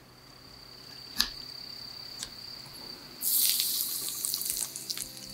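A tiny wok sizzling with crackles as food goes into the hot fat, starting about three seconds in. Before that come two light clicks over a steady high-pitched tone.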